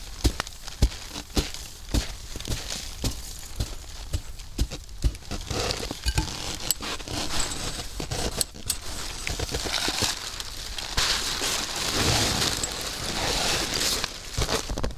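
A run of sharp knocks, about two a second for the first five or six seconds, as a hatchet is struck inside a tipi tent. Then the FireHiking LEVA solo tipi tent's fabric rustles and crinkles as it is taken down, most strongly from about ten to fourteen seconds in.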